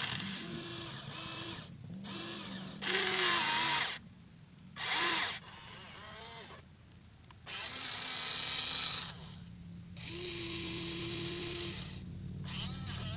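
Huina 1593 RC excavator's small electric motors whining in short bursts that start and stop several times, as its controls are worked one movement at a time.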